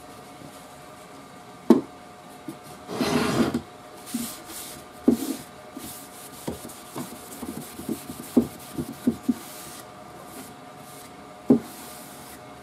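A cloth rag rubbing and wiping over the lacquered wooden radio cabinet, wetting the old finish with lacquer thinner to melt out the crazing, with a louder scrubbing stretch about three seconds in. Several short, sharp knocks of hand and rag against the wood are spread through.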